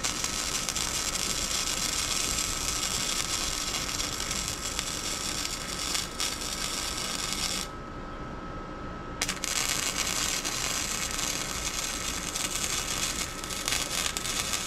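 Arc welding a joint on a steel exhaust pipe: the arc sizzles steadily in two long runs, with a break of about a second and a half near the middle. A faint steady high whine runs under it throughout.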